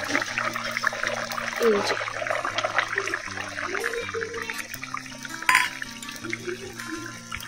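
Fish curry boiling in a kadai with a dense bubbling crackle, over background music of steady held low notes. There is one sharp knock about five and a half seconds in.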